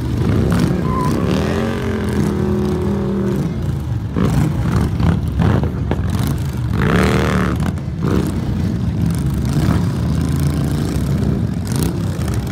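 Several large touring motorcycles running at low speed, a steady low engine rumble with revs that rise and fall.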